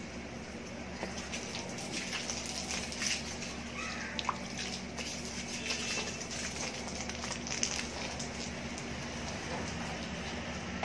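Garden hose spraying water over leafy plants: a steady hiss with scattered light patters, over a low steady hum.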